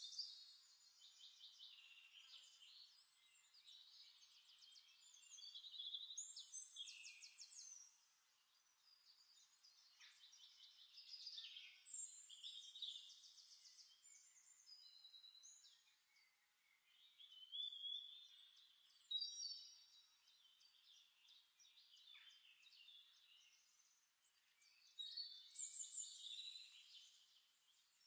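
Faint birdsong: several birds chirping and trilling in short high-pitched phrases, coming in clusters with brief lulls in between.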